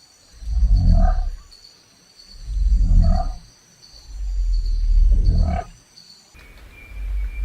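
Deep, loud animal calls repeated about every two seconds, each lasting roughly a second, with the fourth one drawn out longer. Near the end they cut off and give way to a low steady rumble with a thin high tone.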